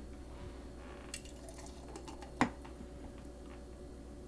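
Faint sipping and swallowing of a thick green smoothie, with one sharp knock about two and a half seconds in.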